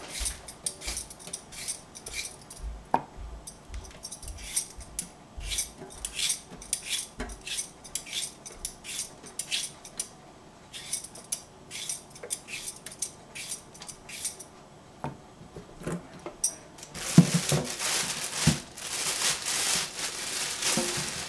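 Hand-held vegetable peeler scraping the skin off a cucumber in quick repeated strokes, about two to three a second, with short clicks of the blade against the vegetable. Near the end comes a few seconds of louder, continuous noise.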